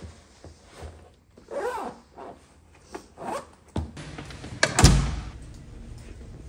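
Luggage being handled: a bag's zipper pulled in short strokes, then a heavy thump about five seconds in.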